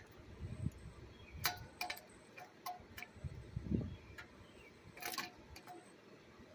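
Scattered light metallic clinks that ring briefly, mixed with a few dull knocks and thumps.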